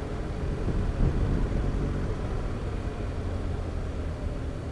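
Motorcycle engine running steadily at road speed under a low rumble of wind and road noise, with a brief louder knock about a second in.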